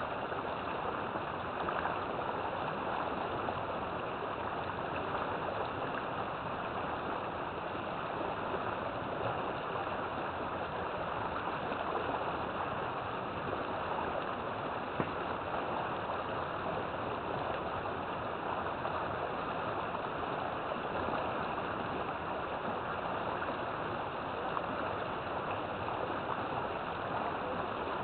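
River water flowing over rocks: a steady, even rush of running water with no breaks.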